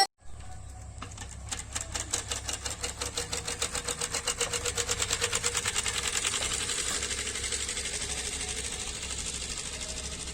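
A bicycle rigged to sound like a motorbike, with a flap clattering against the spokes of the spinning wheel. The clicks quicken as the wheel speeds up and run together into a steady buzz, which then eases off slightly.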